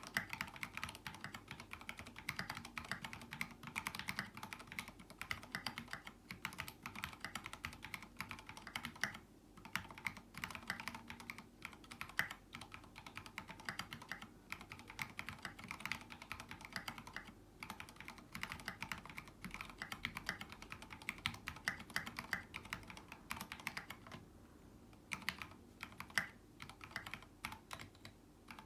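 Continuous typing on a Percent Studio Canoe mechanical keyboard with lubed, retooled Cherry MX Black linear switches on 55 g springs, a brass plate and SA-profile Hyperfuse keycaps. There is a short pause in the keystrokes late on.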